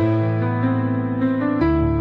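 Background music: a soft piano melody with sustained notes.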